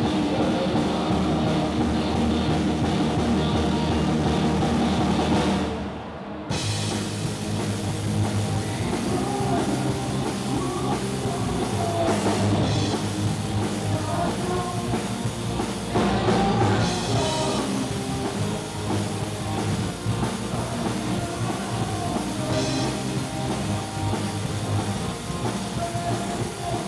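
Live amplified rock band playing: electric guitars, bass, keyboard and drum kit, with a lead singer. The music breaks off briefly about six seconds in, then the full band comes back in.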